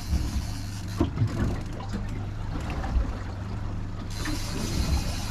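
Fishing boat's motor idling with a steady low hum, with a few short knocks and clicks on the boat, the sharpest about a second in.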